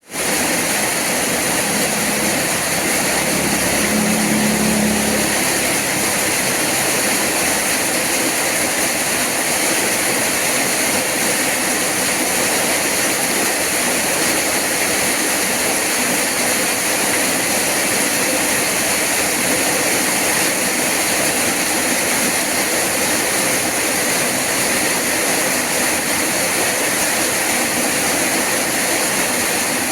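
Rain falling steadily, an even hiss that does not change, with a brief low hum a few seconds in.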